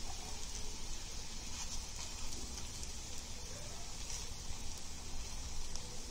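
Paratha frying in oil in a nonstick pan: a steady, soft sizzle.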